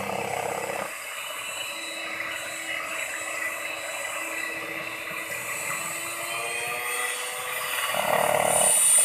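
Electric hand mixer running steadily, its twin beaters whipping cream and chocolate flavouring in a bowl with a constant motor whir, a little louder near the end.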